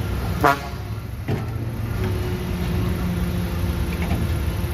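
Diesel engines of a working excavator and dump trucks running steadily. A short, loud pitched call sounds about half a second in, and a knock follows about a second later.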